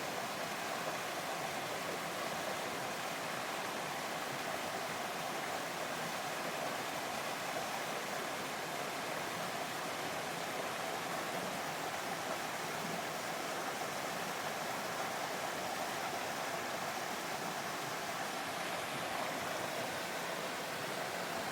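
Small waterfall in a mountain stream, water falling and splashing steadily with an even, unchanging rush.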